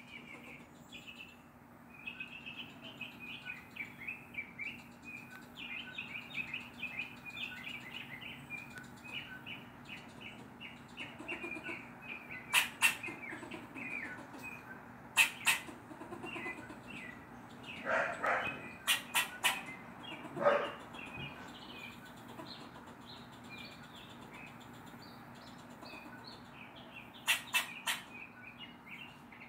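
Tree squirrel barking alarm calls at a cat: a fast, continuous run of short, high chirping barks, with louder, sharper calls breaking in several times in the middle and again near the end.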